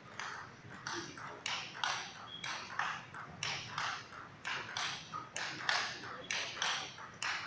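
A fast table tennis rally: the ball clicks sharply off the bats and the table in a steady run of about four to five clicks a second, one player driving topspin and the other blocking.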